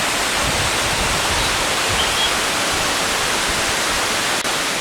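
Cheonjeyeon Waterfall's second cascade, a steady rush of falling water plunging into its pool.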